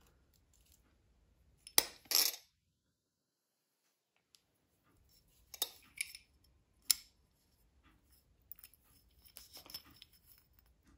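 Small metal wind-chime parts and tools clinking and tapping as they are handled on a wooden tabletop: two sharp clicks about two seconds in and three more around six to seven seconds, then light ticking and rustling toward the end.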